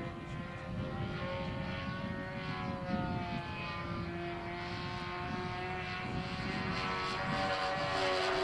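Engine and propeller of a Hangar 9 P-51 Mustang radio-controlled model plane droning as it flies overhead. The pitch wavers as it banks, and it grows louder toward the end as it comes closer. Wind rumbles on the microphone underneath.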